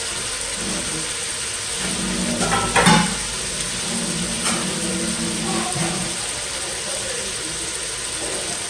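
Potatoes and onions frying in hot oil in a pot: a steady sizzle, with one sharp knock about three seconds in.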